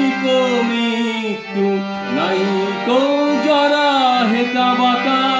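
A man singing a Bengali song in long, gliding held notes, accompanied by a harmonium's sustained reed chords.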